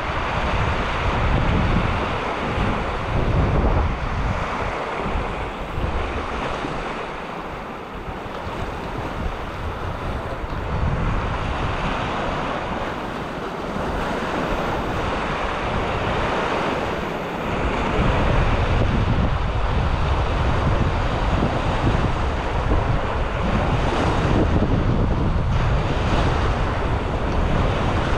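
Small waves breaking and washing up a sandy, rocky shore, with gusts of wind buffeting the microphone. The wind rumble grows heavier a little past halfway.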